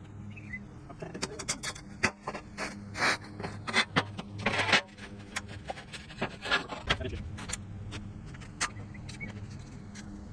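Workshop handling noise: irregular knocks, clicks and a few short scrapes, as of steel parts being handled and set in place, over a steady low hum.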